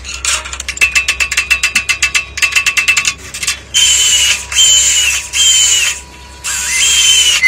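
Fast ratchet-like clicking for about two seconds, then a run of short whistle-like electronic notes that slide in pitch over a steady tone, like an added sound effect or music.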